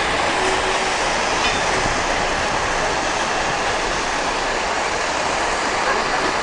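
Steady rolling noise of the Train à Vapeur des Cévennes' coaches on the rails, heard from an open carriage: an even rush with no clear beat.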